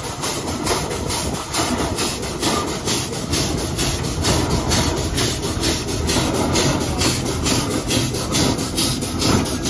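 Steam traction engine driving slowly, its exhaust chuffing in a rapid, even rhythm.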